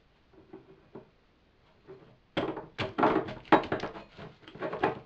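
Banana squelching and knocking against the rim of a glass bottle as it is pressed onto the neck and pulled in by the vacuum of the cooling steam. It starts with a few faint taps, then about two and a half seconds in a loud, rapid run of thuds and clicks.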